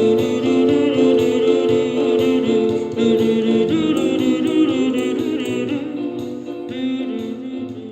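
A woman singing a Russian pop song over an electronic keyboard arrangement, getting quieter near the end.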